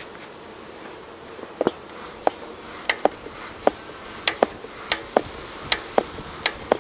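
Honeybees humming around an open hive. About a second and a half in, a run of sharp clicks and taps starts, two or three a second.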